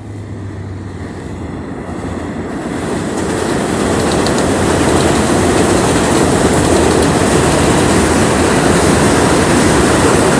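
Elevated subway train running on the overhead tracks, growing louder over the first few seconds as it comes in, then holding a steady, loud rumble.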